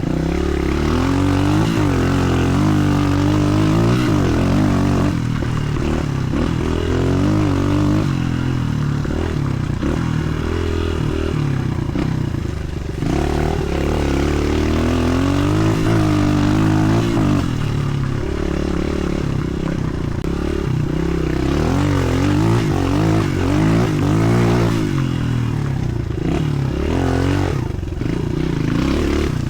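Suzuki DR-Z125L pit bike's single-cylinder four-stroke engine through a Pro Circuit T4 exhaust, ridden hard: revs climb and drop back again and again as the throttle is worked and gears change.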